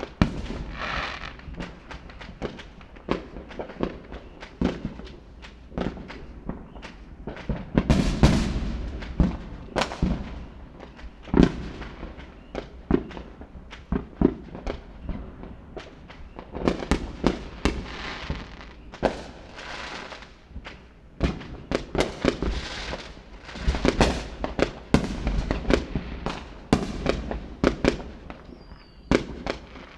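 Fireworks display: a dense, irregular run of sharp bangs and deeper booms, some bunched into rapid volleys, with crackling after several of the bursts.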